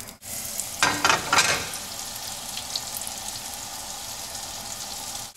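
Chopped sage leaves frying in bubbling melted butter in a pan, a steady sizzle with a louder patch of crackling about a second in.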